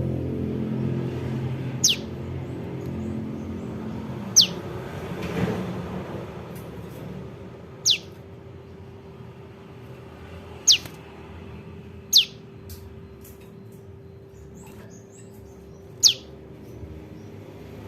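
Young prenjak lumut calling: six short, sharp notes, each falling quickly in pitch, at uneven gaps of one to four seconds. A low background hum runs underneath and fades away.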